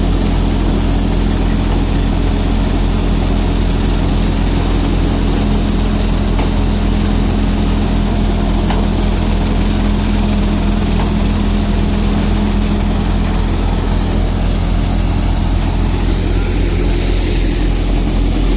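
Multicrop thresher running steadily under load while threshing mustard: a loud, continuous machine drone with a steady low hum.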